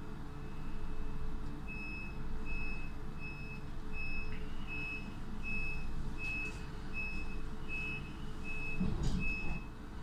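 Door warning beeper of an S-Bahn X-Wagen coach sounding a run of short, evenly spaced high beeps, about one and a half a second, the signal that the doors are closing. It plays over the train's steady low hum, and there is a thump near the end.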